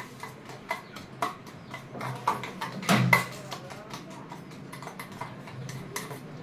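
A utensil clinking against a stainless steel bowl as eggs are beaten, in irregular strokes that grow sparser, with one louder knock about three seconds in.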